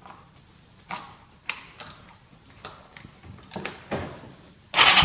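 A series of sharp mechanical clicks and clacks from the key and switches being worked on a Yamaha Bruin ATV. Near the end a sudden loud, steady mechanical sound starts: the engine catching with the newly replaced ignition switch.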